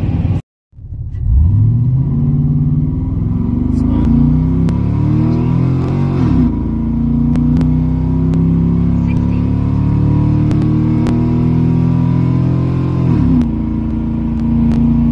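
2003 GMC Sierra pickup's engine at full throttle, heard from inside the cab, launching about a second in and pulling hard with its pitch climbing steadily. It shifts up twice, about six and thirteen seconds in, and each shift drops the pitch before it climbs again.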